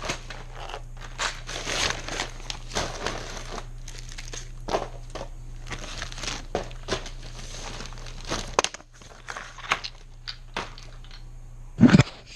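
Rummaging through household clutter: irregular crinkling and rustling of bags and papers as things are picked up and shifted, with small knocks. A low background hum cuts out about two-thirds of the way through, and a louder thump comes near the end.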